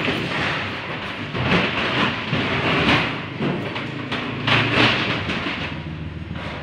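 Plastic water containers being slid and stacked in a truck's metal cargo box: repeated scraping and hollow knocks, several a second, with a low rumble about four seconds in.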